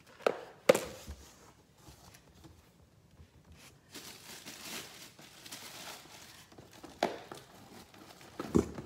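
Cardboard shipping box being unpacked by hand: two sharp knocks in the first second, then cardboard and paper rustling and crinkling, with more knocks near the end.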